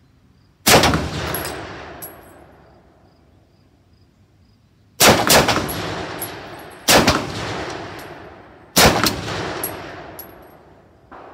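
Four shots from a Mondragón semi-automatic rifle: one about a second in, then three more spaced about two seconds apart from the middle on, each echoing away over a second or two. Faint metallic tinks follow some of the shots.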